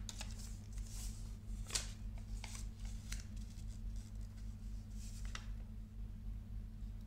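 A handful of brief rustles and clicks from handling a small tripod remote and its paper instruction leaflet, over a steady low hum.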